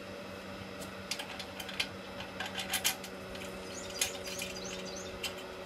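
Light metal clicks and taps as the air-cooled VW cooling fan and its hub parts are handled and turned on the bench, over a steady low hum.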